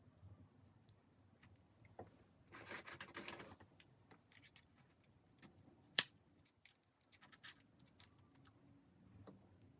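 Faint handling noises: scattered small clicks and taps, a rustle or hiss lasting about a second starting about two and a half seconds in, and one sharp click at about six seconds.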